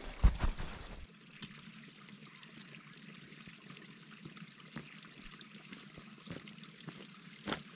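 A small mountain stream trickling steadily, a soft hiss of running water with faint drips. A couple of sharp knocks come in the first second, and one more near the end.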